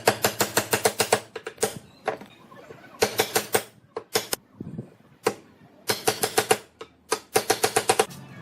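Rapid bursts of sharp taps, several a second, each burst lasting up to about a second, with short pauses between bursts.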